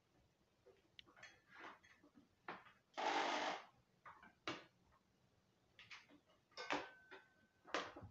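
Handling noises from an electric jigsaw and its power cord being moved about: scattered short knocks and clicks, with one louder rushing burst under a second long about three seconds in.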